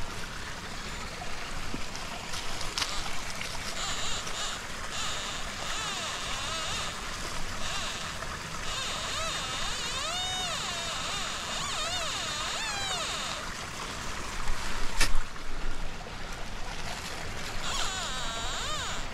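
Woodland stream running steadily. An XP ORX metal detector sounds warbling target tones that rise and fall as the coil is swept, for several seconds from about four seconds in and again near the end. A sharp knock comes about fifteen seconds in.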